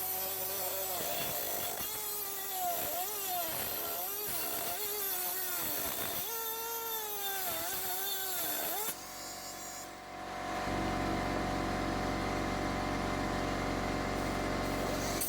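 Central Pneumatic 1/8" mini air die grinder running with a hiss of exhaust air, its whine dipping and recovering again and again as it is pressed into the work and eased off. About nine seconds in it stops. A second, steadier motor starts a second or two later and keeps running.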